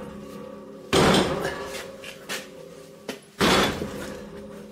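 Two heavy blows from a big pavement hammer on the van's steel road wheel, about two and a half seconds apart, each ringing on afterwards. The wheel has been bolted on back to front so the blows drive out a seized front wheel bearing and hub.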